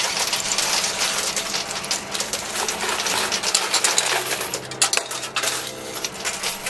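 Quarters clinking and clattering inside a coin pusher machine as coins drop and slide across the metal shelves: a dense, steady run of small metallic clicks. Faint steady tones join in the second half.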